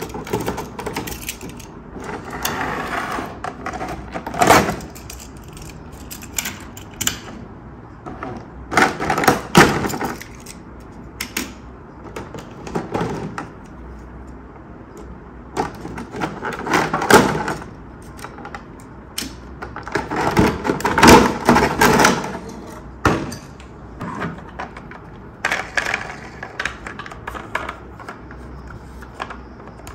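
Plastic toy pieces and packaging being handled: bursts of rustling and clattering with sharp clicks, coming in several separate spells with short pauses between.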